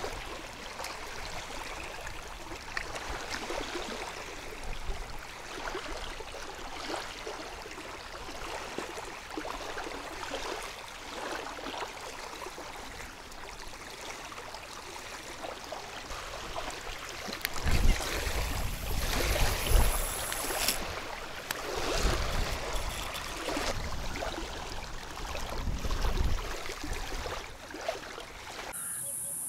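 Small wind-driven waves lapping against a sandy shore, with wind gusting on the microphone between about 17 and 27 seconds in and a few small handling knocks. In the last moment the sound switches to a steady high chirring of insects.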